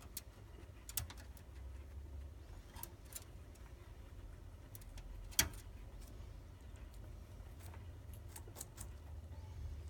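Guinea pig eating and moving about its cage: scattered sharp clicks and crunches at irregular intervals, the loudest about five and a half seconds in, over a steady low hum.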